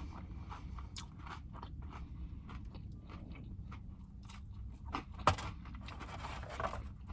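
Close-miked chewing of fried food, with many small crunches and clicks in the mouth; one sharper crunch about five seconds in is the loudest.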